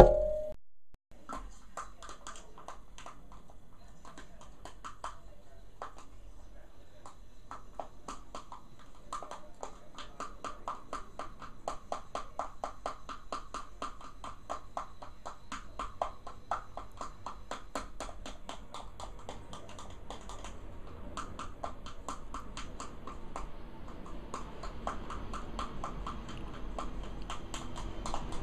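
Metal teaspoon clicking and scraping against a small plastic container while stirring thick shea butter and powder blush, played fast-forward: rapid, uneven clicks, several a second.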